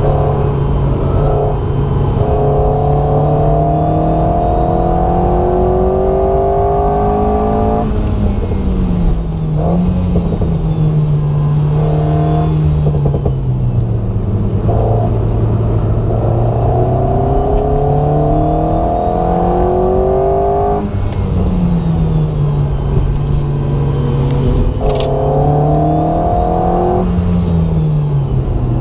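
Alpine A110 GT's turbocharged four-cylinder engine heard from inside the cabin, driven hard on track: three long pulls whose note rises steadily, each cut off sharply as the throttle is lifted, with short bursts of engine note in between, over a steady road and tyre drone.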